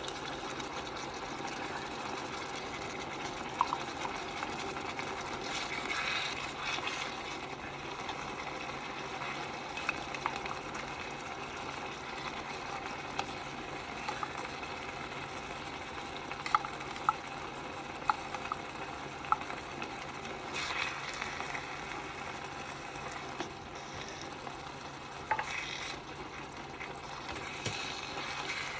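Ground meat and diced tomatoes frying in a pot, stirred with wooden chopsticks: a steady sizzle with sharp clicks now and then as the chopsticks knock against the pot.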